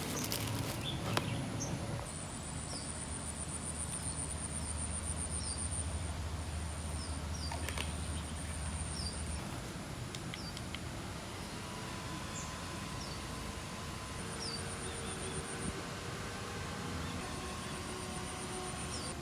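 Insects buzzing in a high, pulsing drone, with short faint chirps now and then and a low rumble that fades out about halfway through.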